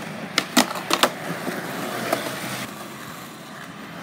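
Skateboard on concrete: a few sharp clacks within the first second or so, then the rough noise of wheels rolling.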